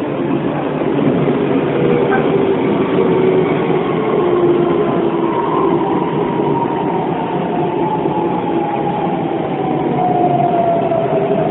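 Hokuso 7500 series electric train running on the rails, with the whine of its Toyo Denki IGBT inverter traction drive; the tones slowly fall in pitch over the second half.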